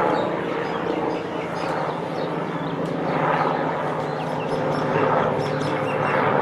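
Agusta A109E helicopter flying low overhead: the steady whine of its twin turbine engines mixed with main rotor noise, swelling in loudness a couple of times as it passes.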